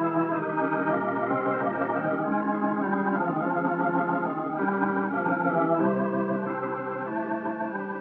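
Background music from the film's score: sustained chords with a slowly moving melody.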